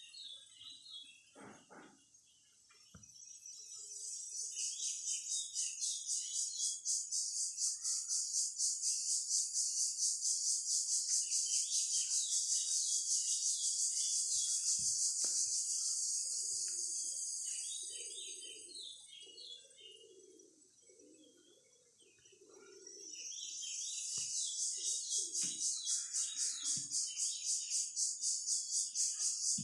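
A high, fast-pulsing insect drone that swells up, holds, fades away about two-thirds of the way through, then swells again near the end. Small birds chirp throughout.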